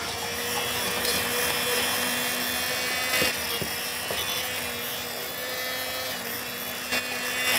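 Stick blender running steadily with a constant motor whine, puréeing parsley, garlic and olive oil in a glass jar.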